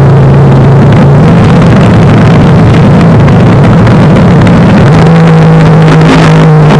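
Loud engines of two drag racing cars at the start line, a steady low drone that steps up in pitch about five seconds in as the cars launch.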